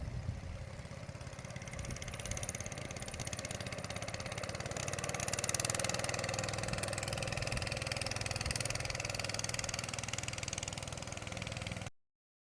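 A small engine running steadily, a little louder from about two seconds in, then cut off abruptly near the end.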